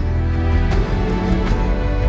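Instrumental background music: sustained chords over a strong bass, with a new chord coming in at the start and a few light percussive hits.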